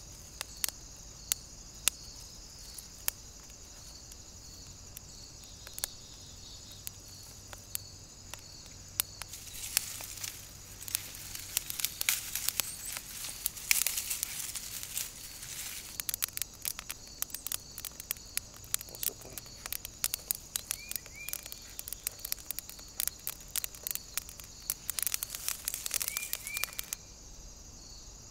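A kindling fire of dry twigs crackling and popping as it catches, the crackles sparse at first and then coming thick and fast from about ten seconds in. Steady insect chirping runs behind it, with a couple of short bird chirps near the end.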